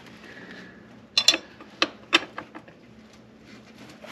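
A few sharp metallic clicks and clinks of a wrench on a motorcycle's rear axle nut as it is given a final snug to line up the cotter-pin hole. There are two close together a little over a second in, then two more soon after.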